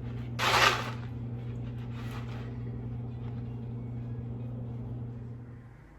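A steady low electrical hum from a running appliance cuts off near the end. A brief loud rustle or clatter comes about half a second in, and a fainter one near two seconds.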